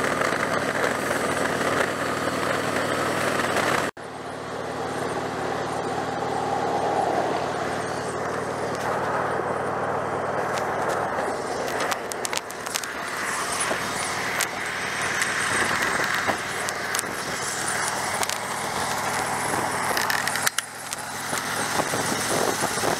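Harley-Davidson V-twin motorcycle engine running steadily at cruising speed under a constant rush of wind noise. The sound breaks off abruptly for an instant about four seconds in, then carries on.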